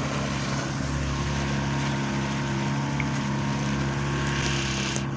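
A 30-horsepower outboard motor on a small motorboat running steadily at cruising speed, with water rushing and splashing along the hull.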